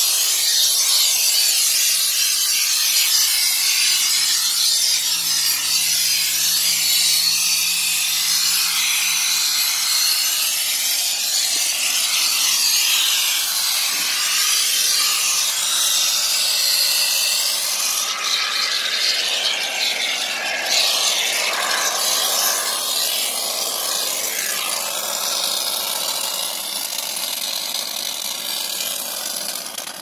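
Aerosol can of expanding spray foam hissing steadily as foam is sprayed out through its straw nozzle. The hiss stops near the end.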